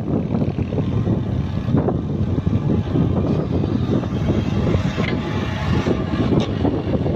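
Sumitomo crawler excavator's diesel engine running steadily under load as it digs with the bucket and swings.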